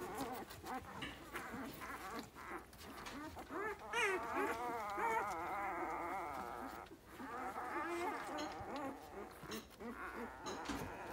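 Eight-day-old Dalmatian puppies squeaking and whimpering: several thin, wavering little cries overlap, loudest about four to six seconds in and again near eight seconds, with soft blanket rustling.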